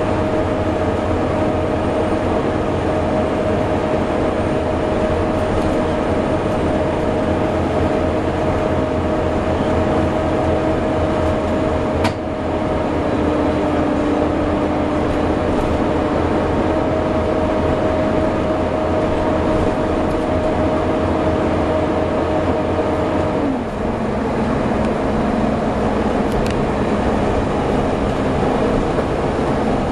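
Volvo B7TL double-decker bus running with a steady hoover-like whine over the engine, with a sharp click about twelve seconds in; after about twenty-three seconds the lower part of the whine drops in pitch and holds there.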